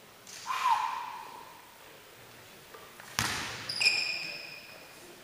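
A basketball bounced twice on a wooden gym floor at the free-throw line, about three and four seconds in, each bounce followed by a short ringing ping. A brief squeak comes just before, near the start.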